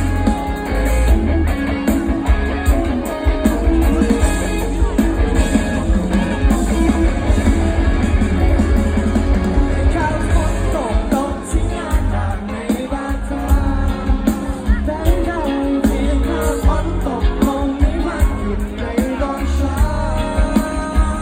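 Band playing a Thai pop-rock song, with guitar and heavy bass on a steady beat; singing comes in more strongly about halfway through.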